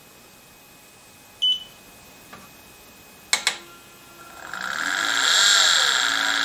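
Motor driver for a lathe-mounted grinding spindle giving a short high beep, then two sharp clicks, then the spindle motor spinning up to a steady electric whine that holds through the end. The spindle runs normally despite an error 02 the driver had just shown.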